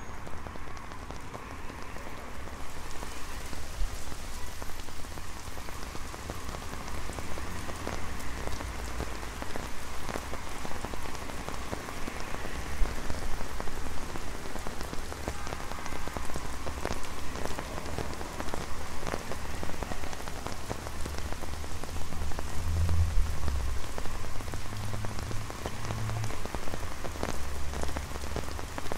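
Rain falling on an umbrella overhead: a dense, even patter of many small drop ticks. Under it runs a low rumble of road traffic that swells for a few seconds near the end.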